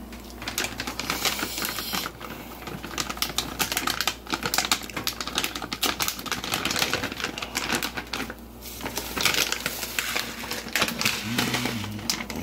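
Plastic bags and food packaging crinkling and rustling as they are handled, a dense irregular crackle that swells and eases throughout.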